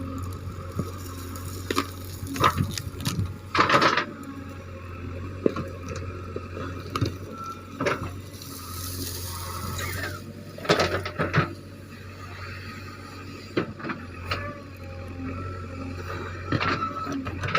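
JCB 3DX backhoe loader's diesel engine running steadily while it works, with loud intermittent cracks and squeals from the machine working through babul (acacia) bushes.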